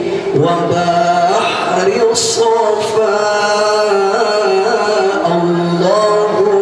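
A man singing sholawat, an Islamic devotional song praising the Prophet, solo into a handheld microphone. He holds long notes and ornaments them with melismatic turns.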